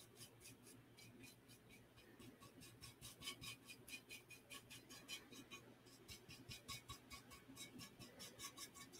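Faint, quick brush strokes, several a second, of a paintbrush laying red acrylic paint onto a ceramic truck figure, over a near-silent room with a low steady hum.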